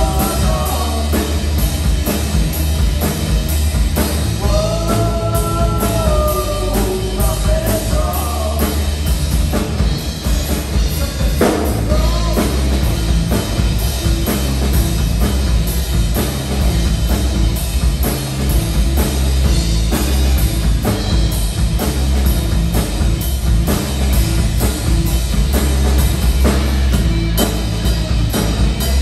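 Live rock band playing loudly: electric guitars over a drum kit keeping a steady beat, with a heavy low end.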